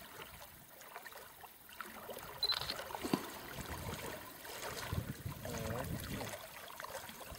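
Water sloshing and splashing in irregular strokes as a man wades through shallow water hauling a drag seine net.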